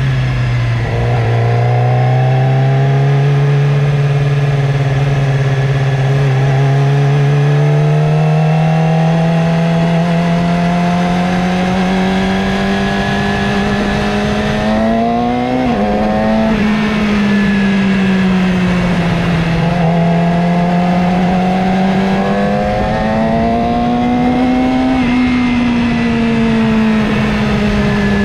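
Motorcycle engine running under way, its pitch rising and falling with speed. About halfway through it climbs and then drops abruptly, with a second, smaller rise and fall near the end.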